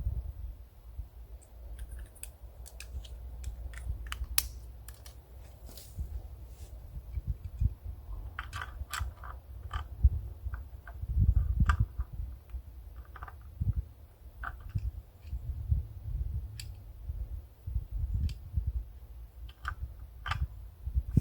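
Hands working plumbing fittings for a well pump: scattered light clicks and taps of parts being handled and fitted, over an uneven low rumble that swells loudest about halfway through.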